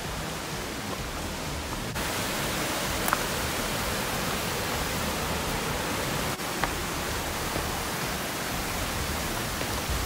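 Steady rush of a mountain stream or cascade running beside the trail, getting louder suddenly about two seconds in.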